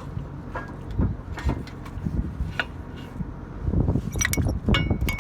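Metal knocks and thumps from a tractor's extendable hitch being worked, with a cluster of sharp ringing clinks about four seconds in.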